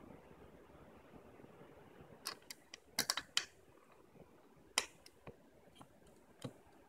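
Small hard clicks and clacks of curtain-rail parts and screws being handled: a quick cluster of four or five about halfway through, then a few single clicks spaced out toward the end.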